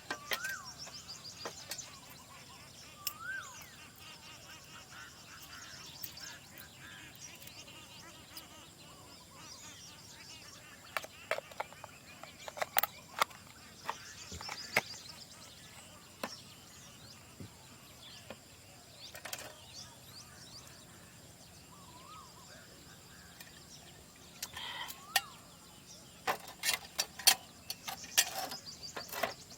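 Wild birds calling: several short whistled notes that rise and fall, and higher chirps, over a faint steady background. Scattered sharp clicks and knocks come in, most of them around the middle and in the last few seconds.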